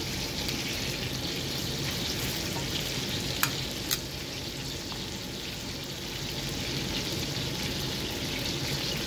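Scallops sizzling in a stainless steel pan of bubbling lemon-butter and broth sauce: a steady frying hiss, with two sharp ticks about three and a half seconds in.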